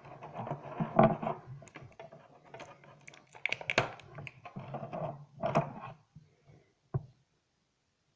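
Clear plastic blister packaging being handled and crinkled close to the microphone, with many clicks and rustles. The handling stops about six seconds in, followed by one single knock.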